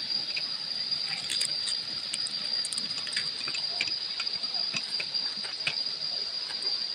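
A steady high-pitched insect drone over a constant rush of water from river rapids, with scattered short chirps.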